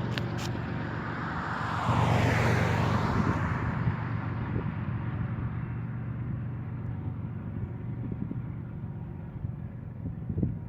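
Union Pacific freight train rolling past: a steady low rumble with a whine that falls in pitch about two seconds in as something passes close, then the rumble slowly fades as the train moves away.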